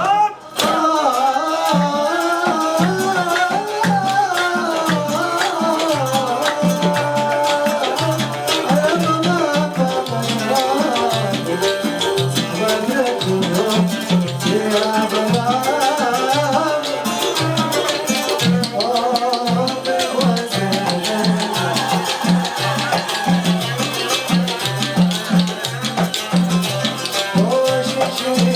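Arabic song music: a melody line over a steady, evenly repeating drum and percussion beat.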